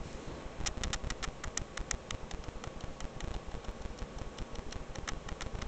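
A run of quick, irregular clicks, several a second, over a faint steady hum.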